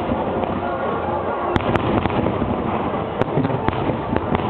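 Aerial fireworks bursting in a dense, continuous barrage, with scattered sharp cracks standing out, two in quick succession about one and a half seconds in.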